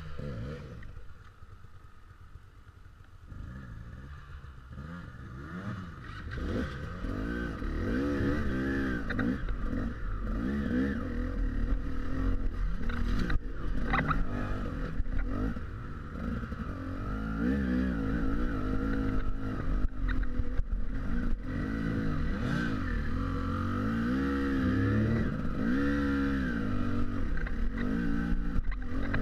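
KTM enduro motorcycle engine revving up and down again and again as the throttle is worked on a steep rocky climb, quieter for the first few seconds and louder from about six seconds in.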